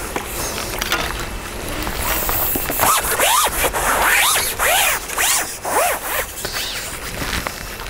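Landing net and pole tackle handled as a hooked fish is netted: a run of short rasping scrapes, each rising and falling in pitch, from about three seconds in.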